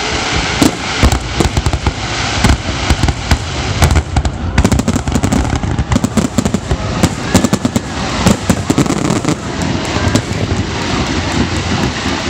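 Fireworks display: a dense, rapid run of aerial shells bursting in loud bangs, with crackling in between that grows thicker about halfway through.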